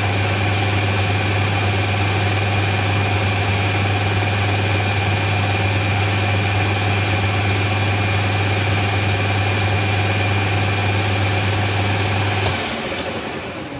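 Taiwanese metal lathe running while turning a steel test bar, a steady low motor hum with a thin high whine over it. About 12.5 seconds in, the motor is switched off and the spindle winds down, the sound fading away.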